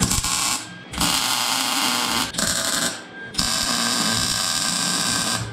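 MIG welder arc crackling in four bursts, the last and longest about two seconds, as steel tube intake runners are tack-welded to their flange.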